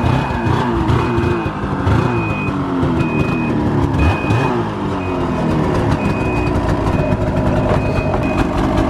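Ski-Doo XRS 800 E-TEC two-stroke snowmobile engine running, its revs rising and falling as the throttle is blipped. A high warning beeper sounds about once a second throughout, the beep a snowmobile gives when it is in reverse.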